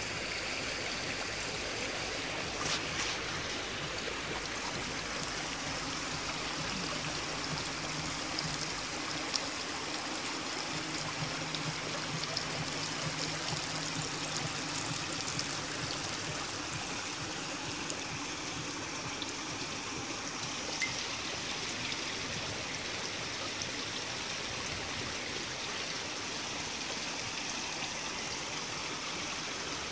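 Steady running water, a continuous trickling rush, with a few faint clicks scattered through it.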